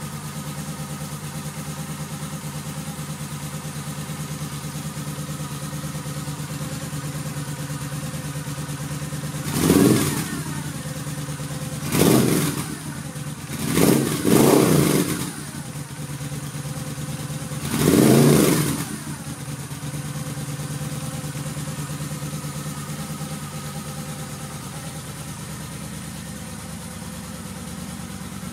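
2011 Moto Guzzi V7 Classic's air-cooled 90° V-twin running through reverse-cone Mistral exhausts with a crossover pipe: a steady idle, blipped sharply five times in the middle (two blips close together), each rev rising and dropping straight back to idle.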